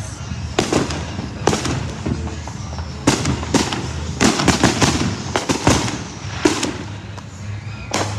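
Fireworks going off: a dozen or so sharp bangs and pops at irregular intervals, some in quick clusters, over a steady low rumble.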